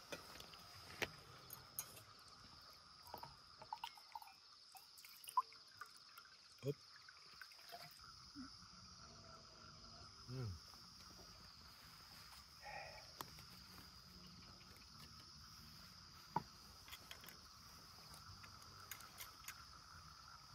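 Faint, steady chirring of crickets and other night insects, with a few soft clicks and knocks scattered through it.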